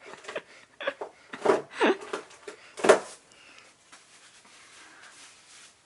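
A person sneezing in a quick fit: about five short, sharp sneezes and catching breaths in the first three seconds, each falling in pitch, the last and loudest about three seconds in. After that only faint breathing.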